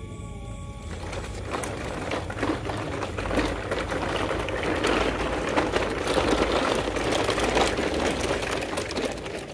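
Plastic toy dump trucks rolling over loose pebbles and gravel: a dense crunching, rattling clatter of wheels on stones. It gets louder as the trucks come closer, then fades near the end.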